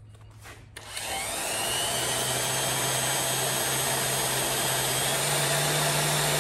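Electric heat gun switched on about a second in: its fan motor spins up with a briefly rising whine, then blows with a steady whir.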